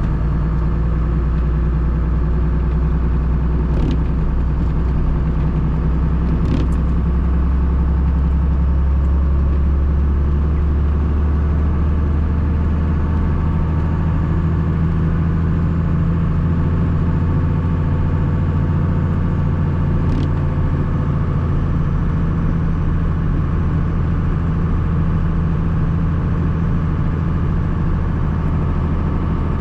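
1994 Dodge Ram's Cummins 5.9-litre inline-six turbodiesel running steadily while driving, heard from inside the cab, its pitch shifting slightly with engine speed. A few faint clicks sound over it.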